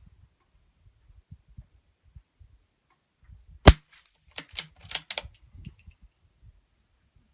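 A single suppressed .17 HMR rifle shot, a sharp crack about halfway through, from a Ruger 77/17 bolt-action rifle fitted with a Q El Camino rimfire suppressor. It is followed within a second by a quick run of metallic clicks and clacks as the bolt is worked.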